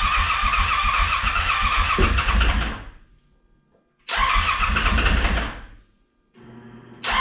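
Yamaha Wolverine X4's freshly rebuilt engine being cranked on the starter for its first start: a run of about three seconds, a pause, a shorter second run, then a third attempt beginning near the end, without the engine catching and running.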